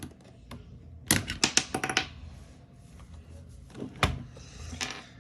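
Plastic clicks and snaps as a pry tool works the trigger button out of a PS5 controller: a quick run of sharp clicks about a second in, then single clicks near four seconds and near the end.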